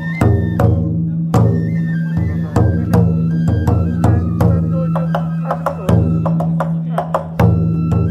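Festival float music: a large taiko drum beaten with sticks in rapid, steady strokes, with a high, stepping flute melody over it.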